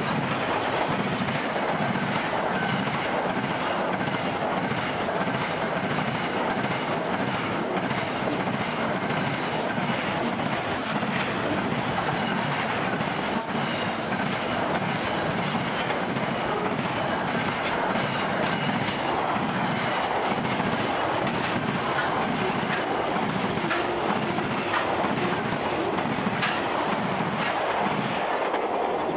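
Wagons of a long SCT freight train rolling past at speed: a steady rumble of steel wheels on rail with a rhythmic clatter of wheels over the track. The last wagons pass near the end.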